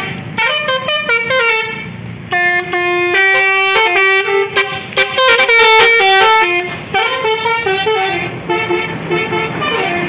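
Telolet basuri musical horn on a Mercedes-Benz OH 1626 coach playing a quick melody, several tones sounding together and stepping from note to note with brief breaks, dipping about two seconds in before starting again.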